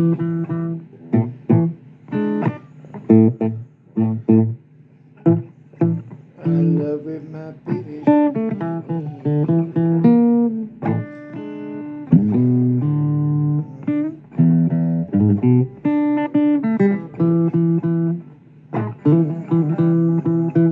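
Blues guitar music: a run of plucked guitar notes and short phrases, each note ringing and dying away, over low bass notes.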